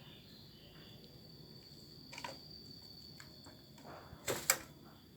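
Quiet room tone with a few sharp clicks or taps: a faint one about two seconds in and a louder close pair about four and a half seconds in.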